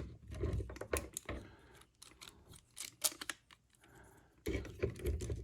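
Plastic parts of a Masterpiece MPM-11 Ratchet transforming toy figure clicking as they are folded and pressed into place by hand, a string of small irregular clicks.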